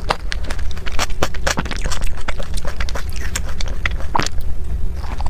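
Close-miked eating sounds: wet chewing with a quick, irregular run of mouth clicks and smacks over a steady low rumble.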